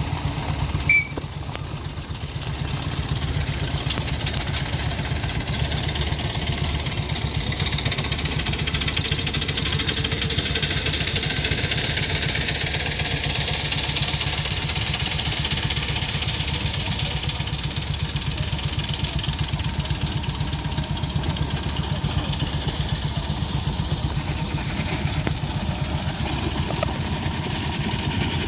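An engine idling steadily with a fast, even low beat, and a short sharp knock about a second in.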